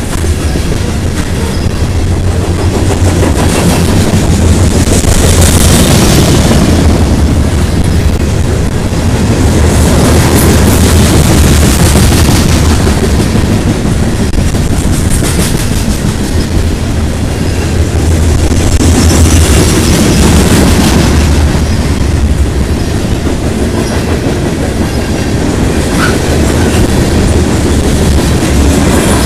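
Covered hopper cars of a freight train rolling past close by: a loud, steady rumble and clatter of steel wheels on the rails, swelling and easing every few seconds.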